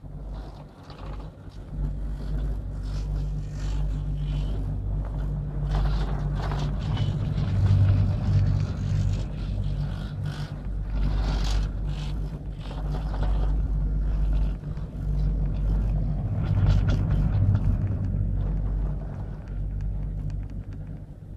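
Steady low rumble of a Doppelmayr three-seat chairlift in motion, with a clattering run of clicks about halfway through as the chair's grip passes over the rollers of a lift tower.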